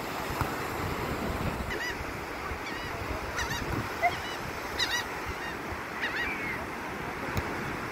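Gulls giving short cries, about five times, over a steady rush of surf and wind.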